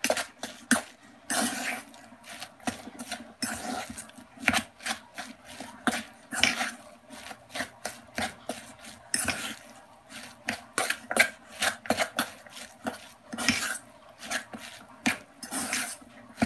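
Metal spoon clinking and scraping against a stainless steel mixing bowl as salmon croquette mixture is stirred, in irregular clinks with a few longer scrapes.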